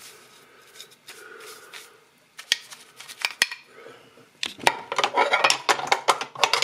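Sewing machine parts knocking and clinking against each other and the plastic wash basin as they are handled in soapy water: a few separate knocks, then a busy clatter over the last two seconds.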